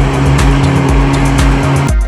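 Personal watercraft's 1800 cc engine running hard with the rushing of its water jet, a steady drone, over music with a steady beat. The engine noise cuts off suddenly near the end, leaving only the music.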